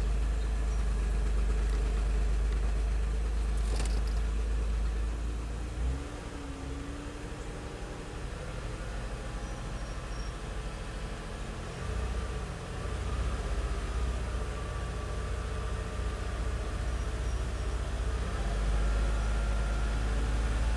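Car engine idling on new spark plugs and plug wires, fitted to cure intermittent misfires; it runs steadily, with the level dipping about six seconds in and picking up again from about twelve seconds.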